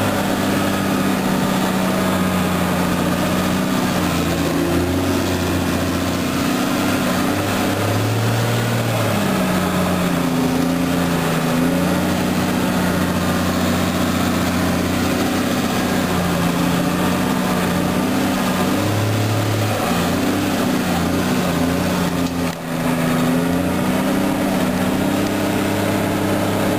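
Tracked farm tractor grooming a snowmobile trail, its engine running steadily under load in low gear as it climbs a steep hill pulling a grooming drag; the engine note rises and falls slightly a few times.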